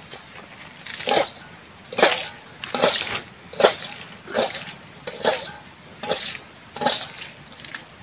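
Muddy water bailed by hand out of a shallow pool with a metal bowl, each scoop flung out with a splash, a little more than once a second, about nine in all. The pool is being drained to catch the fish in it.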